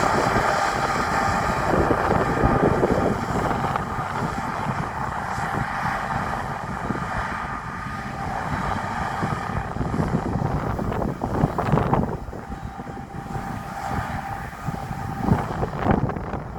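Harvest machinery, a combine harvester and a tractor, running steadily in the field, with wind buffeting the microphone. The engine hum eases off somewhat after about ten seconds, leaving more wind.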